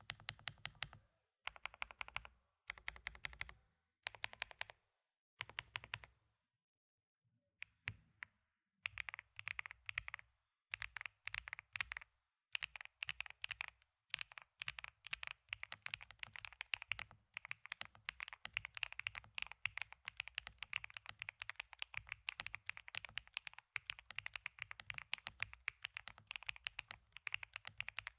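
Xinmeng M87 Pro mechanical keyboard with Z1 switches being typed on: a few short bursts of rapid keystrokes, a pause of about two seconds, then continuous fast typing.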